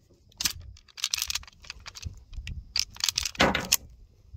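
Slide of a Rock Island Armory TAC Ultra 10mm pistol being worked by hand to clear a round that hung up feeding: a run of metallic clicks and clacks, the loudest about three and a half seconds in.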